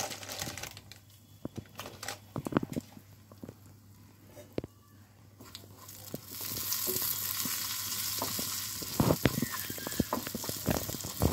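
Spice tempering (chhok) of ghee, asafoetida, Kashmiri chilli powder and kasuri methi in a small kadai, stirred with a spatula: light taps and scrapes of the spatula in the pan, then a steady sizzle that comes in about six seconds in.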